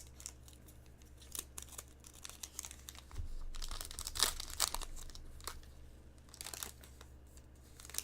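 A trading card pack's wrapper being torn open and crinkled by hand, the loudest rustling coming about three to five seconds in.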